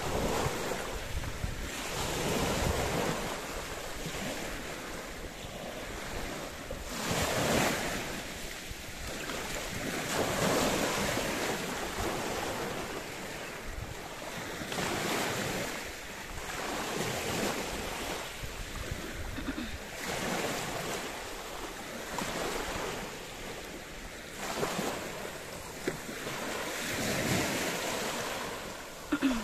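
Small sea waves washing in and breaking on the shore, a swell of surf every few seconds, with wind on the microphone.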